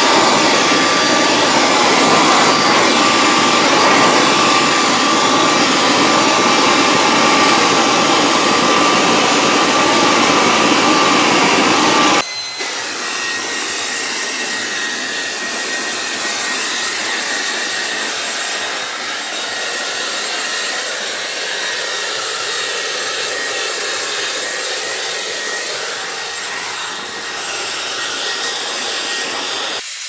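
Black & Decker BV2500 corded electric leaf blower running steadily, a loud rushing air noise over a steady motor whine. About twelve seconds in, the sound drops abruptly to a quieter, more distant blower with a higher whine.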